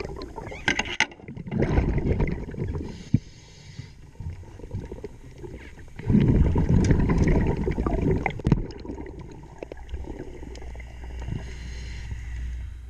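Scuba diver's exhaled bubbles rising past the microphone underwater, in two long gurgling bursts, with a fainter hiss between them and a few sharp knocks.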